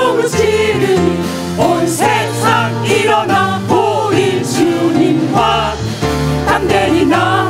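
Mixed-voice praise team singing a worship song into microphones over amplified instrumental backing with sustained bass notes.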